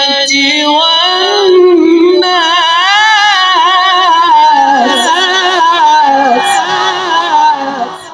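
A man's voice in Quranic recitation (tajwid), one long, melismatic phrase held and ornamented with wavering turns, trailing off near the end.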